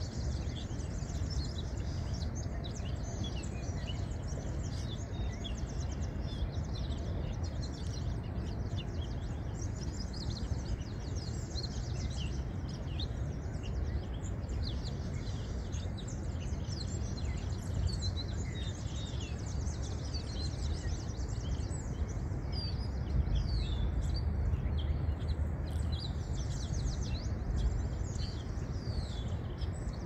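Birds chirping: many short, high chirps scattered throughout, over a steady low rumble of outdoor background noise.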